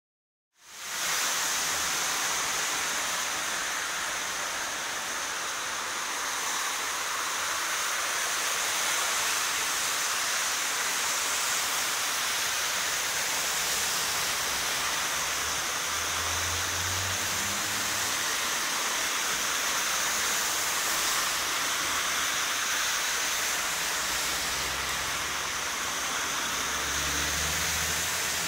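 Heavy rain pouring steadily onto a flooded street, with water running across it, starting abruptly about half a second in. A low rumble comes a little past the middle and again near the end.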